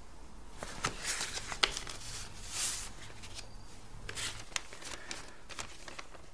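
A folded paper letter being handled and unfolded: a string of short, crisp paper rustles and crackles, the sharpest about a second and a half in.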